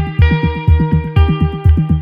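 Instrumental background music with a steady beat, about four pulses a second, under sustained chords that change roughly once a second.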